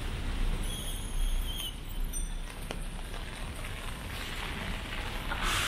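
Steady hiss of rain falling on wet pavement over a low city rumble, with a louder swell of hiss near the end.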